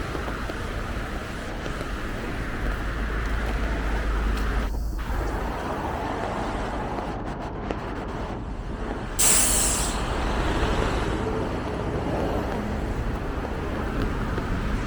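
City street traffic on a wet, rainy street: a steady rumble of passing vehicles, heavier for a couple of seconds near the start. About nine seconds in there is a short, loud, sharp hiss.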